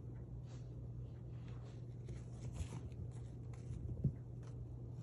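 Kittens' paws scrabbling and scratching on a carpet runner in soft, irregular rustles, with one sharper thump about four seconds in as a kitten pounces.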